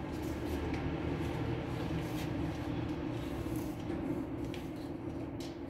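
Steady machine hum with a few faint clicks.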